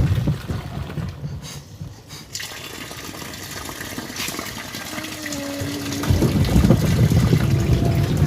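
Water churning and splashing in a twin-tub washing machine's wash tub. The loud low churning fades within the first second, leaving quieter sloshing, and comes back strongly about six seconds in with a steady motor hum.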